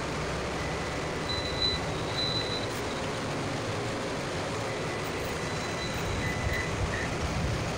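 Steady hum and rushing noise of running solar inverters and their equipment in a closed room, with a faint high-pitched whine that swells briefly a couple of times.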